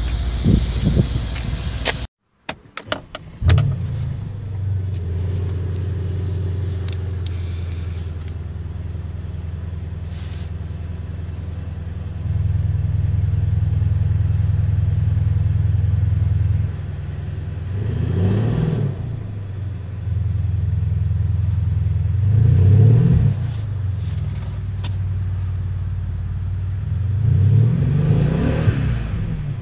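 Mercedes-Benz S 63 AMG's 5.5-litre twin-turbo V8 starting up with a sharp burst, then settling into a steady, deep idle. The idle steps up for a few seconds midway. Three short revs follow in the second half, about five seconds apart.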